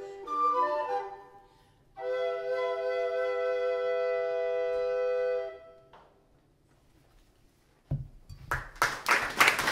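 Recorder trio playing a short run of notes, then a held final chord of several steady notes lasting about three and a half seconds before it dies away. After a short silence, audience applause breaks out about eight seconds in and grows louder; it is the loudest sound.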